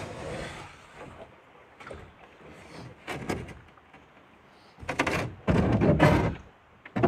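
Canoe hull scraping and knocking on snow-covered rock as the paddler tries to shove off the shore with the paddle: a few short knocks and scrapes, then a loud grinding scrape lasting over a second near the end.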